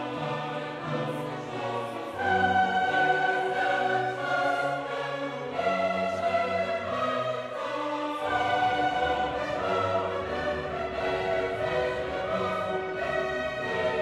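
Background music of orchestral and choral character, long held notes and chords changing every second or two.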